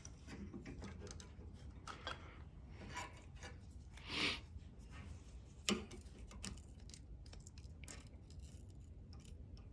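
Faint clicks and light scrapes of small steel multitool parts and a tiny Torx screwdriver being handled during reassembly. A louder scrape comes about four seconds in and a sharp click shortly after.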